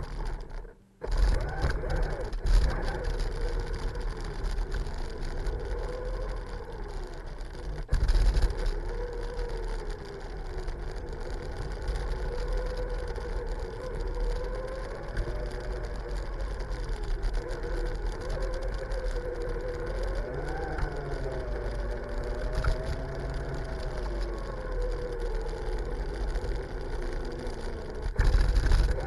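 Brushless electric motor of a Redcat Volcano RC truck whining as the truck tows a loaded wheeled cart by a rope, its pitch rising and falling with the throttle, over a steady low rumble of wheels on pavement.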